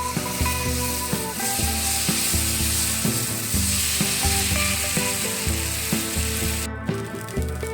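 Food sizzling as it fries in hot oil, over background music with a steady bass beat; the sizzle cuts off abruptly about a second before the end.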